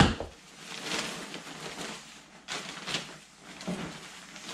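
A thump right at the start, then a thin plastic shopping bag rustling in irregular patches as hands rummage through it and pull out a shirt.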